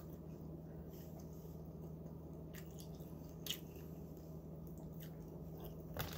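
A person quietly chewing a mouthful of baked egg, with a few soft wet mouth clicks, the loudest about three and a half seconds in, over a steady low hum. A rustle begins right at the end.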